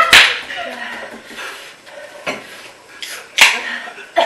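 Chopsticks knocking and scraping against bowls while noodles are eaten, with a few sharp clicks, the loudest about three and a half seconds in.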